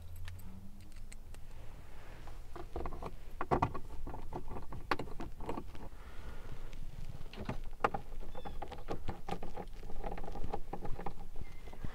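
Irregular clicks and knocks of a hand tool and plastic dash trim while four T15 Torx screws are fitted.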